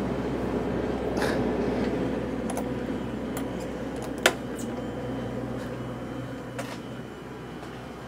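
Steady mechanical hum with a few steady low tones, slowly fading, with one sharp click about four seconds in and a few lighter knocks around it.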